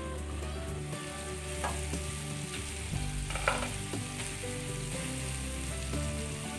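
Mutton pieces frying with a steady sizzle in a grill pan as its glass lid is lifted off, over instrumental background music.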